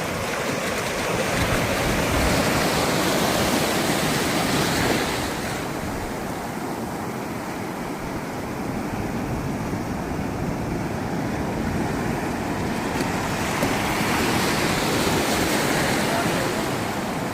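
Steady rush of moving river water, louder and hissier for the first few seconds and again near the end.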